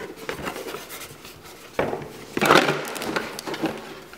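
Cardboard toy box being handled and tipped, with scraping and a few knocks as plastic Duplo bricks slide out. The loudest clatter comes about two to two and a half seconds in.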